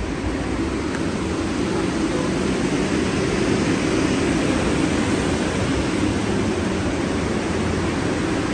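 Steady running noise of a subway train moving through a tunnel, heard from inside the car, growing a little louder over the first few seconds.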